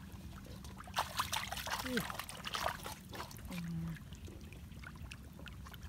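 Muddy puddle water splashing and pouring as it is scooped out by hand, a burst of sloshing for about two seconds starting a second in. Brief low vocal sounds come in between.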